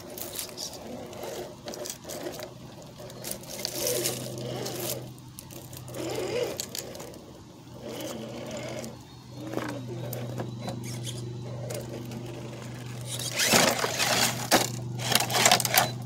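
Radio-controlled rock crawler's electric motor and drivetrain whining steadily as it crawls over rocks, the pitch briefly rising and falling with the throttle. Louder rushing noise and knocks come near the end.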